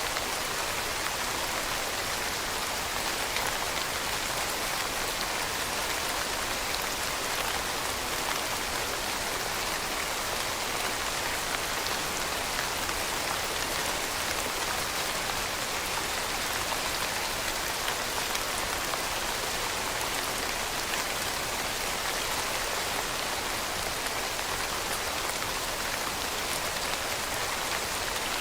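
Steady rain falling on a surface, an even hiss with many fine drop patters and no let-up.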